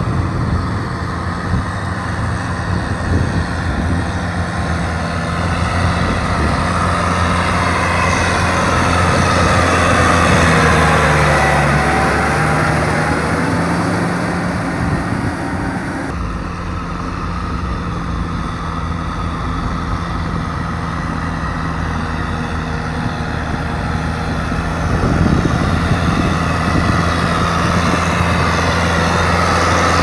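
Kubota M6040 tractor's four-cylinder diesel engine running steadily under load as it works a muddy rice paddy. The engine note sags briefly near the middle, then picks up again.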